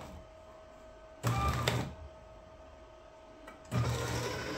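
Member's Mark autofeed microcut paper shredder's motor cutting in and out. It runs for about half a second roughly a second in, stops, then starts again near the end, with a faint whine in the pauses. It is overloaded with about twice its rated sheets, so it keeps stopping and reversing as it tries to chew through the stack.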